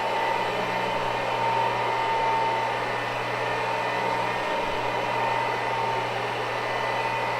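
Carpet cleaning machine's electric motor running steadily during an ultra-low-moisture carpet clean, a constant hum with a steady whine over it.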